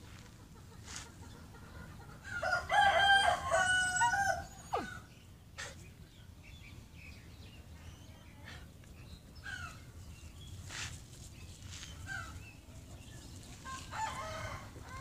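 A rooster crowing once, a drawn-out call of about two and a half seconds that drops in pitch at the end. A shorter, fainter call comes near the end, with light scattered clicks in between.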